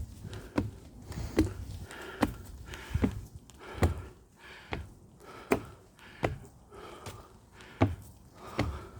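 Footsteps on a hiking trail at a steady walking pace, each step a sharp knock with a low thud, about one step every 0.8 seconds, along with the hiker's breathing.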